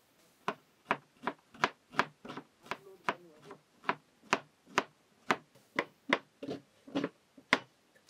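Kitchen knife chopping small red onions with green tops on a plastic cutting board: a steady run of sharp chops, about two or three a second, starting about half a second in.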